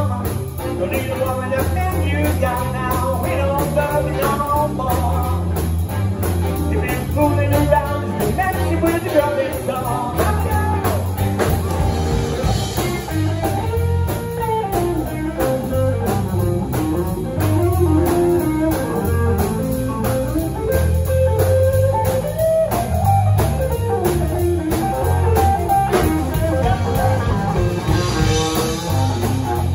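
A live blues band playing an instrumental passage on electric guitar, drum kit and saxophone over a steady beat, with the electric guitar coming to the front near the end.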